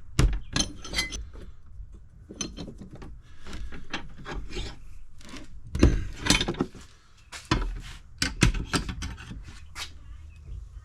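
A steel frame stiffener plate being worked and bent into shape: irregular knocks and sharp hits mixed with scraping and rubbing, with the loudest hits about six and eight seconds in.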